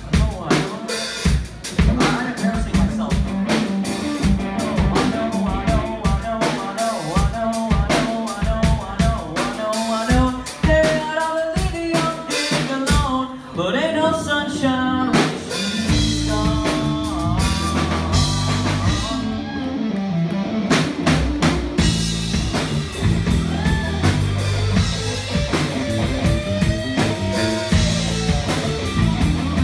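Live rock band playing an instrumental break with no vocals: electric guitar lead lines over drum kit and bass guitar. About halfway through, the low end grows much heavier.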